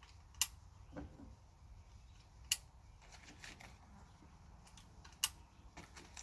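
Sharp metallic clicks, three loud ones a couple of seconds apart with fainter ticks between, as .22 cartridges are loaded one at a time through the loading gate of a single-action revolver carbine at half cock and its cylinder is turned.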